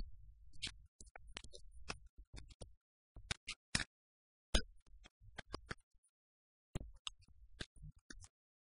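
Irregular sharp clicks and crackles, some with a low rumble under them, cutting in and out with stretches of dead silence between.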